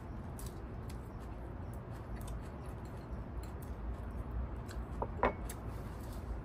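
Small clicks of eating utensils against dishes over a steady low background rumble, with one sharper click about five seconds in.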